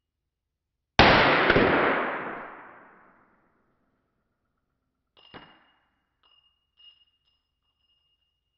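A single pistol shot from a Lange Luger P08 in 9 mm Parabellum, fired with its holster stock attached, echoing in an indoor range for about two seconds. About four seconds later comes a short metallic clink, followed by two faint ticks.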